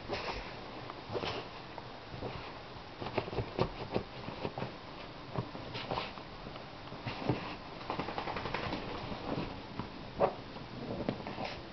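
A wet corgi rubbing itself dry against a couch pillow and blanket: irregular rustling and scuffing of fabric and paws.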